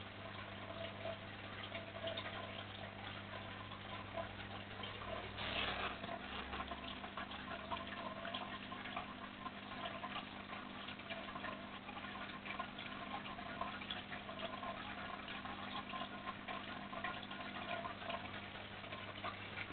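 Aquarium filter running: a steady electric hum under a continuous crackling hiss of moving water, with a brief louder rush about five seconds in.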